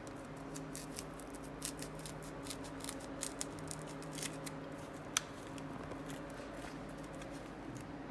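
Light rustling and small clicks from hands handling small rocket parts and foam wadding on a padded table, with one sharper click about five seconds in. A steady low hum runs underneath.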